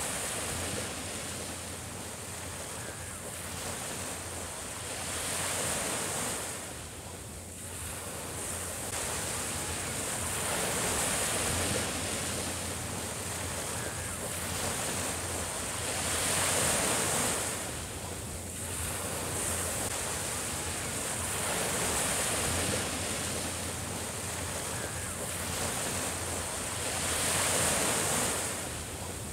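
Small Mediterranean waves breaking and washing up a sandy beach, the surf swelling and easing about every five seconds.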